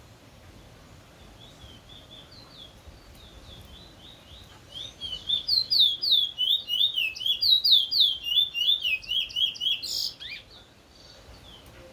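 Ovenbird singing its 'teacher-teacher' song: a rapid series of repeated two-note phrases, faint at first and then much louder from about four seconds in, building to the end of the song. It stops at about ten seconds in with a sharp click.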